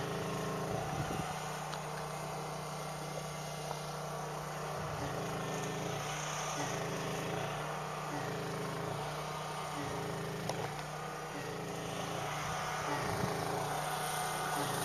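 An engine running steadily: a low hum with a faint pulse roughly once a second.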